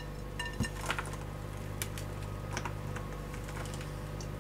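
Granola mixture being scraped out of a glass bowl with a silicone spatula onto a silicone-mat-lined baking sheet: scattered light clicks and taps of spatula on glass and oats dropping, over a steady low hum.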